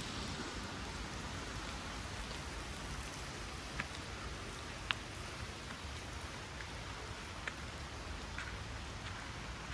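Steady rain falling, with a few sharp single drop ticks, the clearest around the middle.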